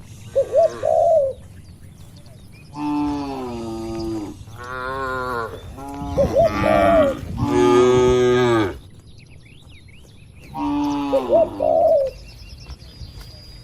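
Cows mooing, several long calls one after another in the middle, with shorter calls at the start and near the end.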